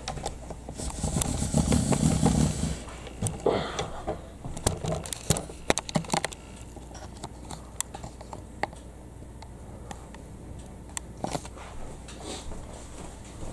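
Handling noise from a video camera being picked up and moved by hand: a low rumble and rustle for the first few seconds, then scattered clicks and knocks.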